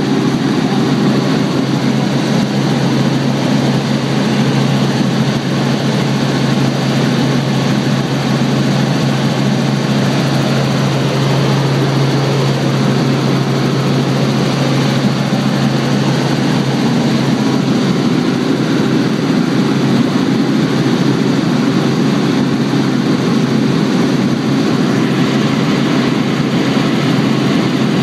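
Robinson R44 helicopter in flight, heard from inside the cabin: the steady hum of engine and rotors with rushing airflow, unchanging throughout.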